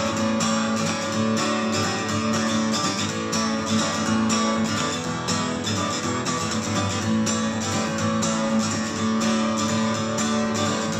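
Sunburst cutaway acoustic guitar played solo, strummed and picked in a steady country rhythm with no singing.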